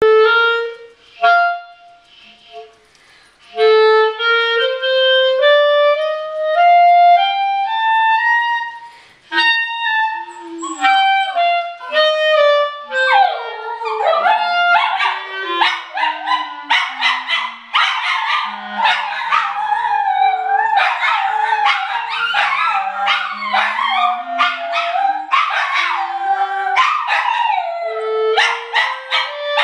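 A clarinet plays single held notes in a slow rising and then falling run. About halfway through, dogs join in, howling and yipping along over the clarinet as it steps down to its low notes and back up.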